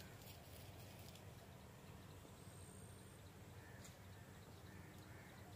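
Near silence: faint outdoor background, with a brief faint high tone about two and a half seconds in.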